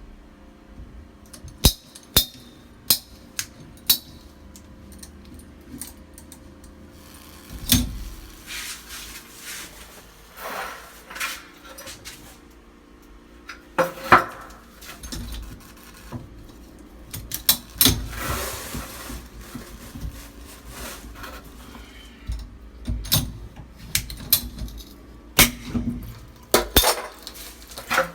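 Irregular clicks, knocks and clatter of pipe, fittings and tools being handled during plumbing work, with a couple of brief scraping stretches.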